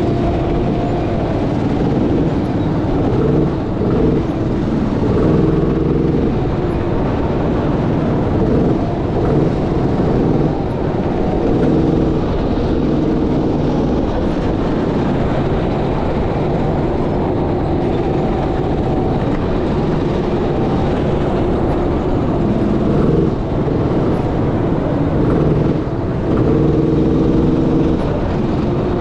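Sodi SR5 rental go-kart engine running hard, heard from the driver's seat, its note rising and falling repeatedly as the kart brakes and accelerates around the track.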